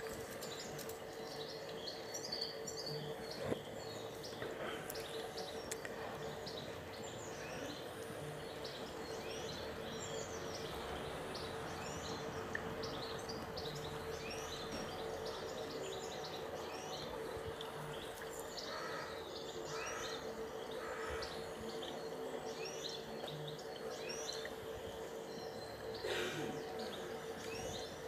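Small birds chirping over and over, above a steady wash of water running over a stainless steel sphere water feature, with a faint steady hum.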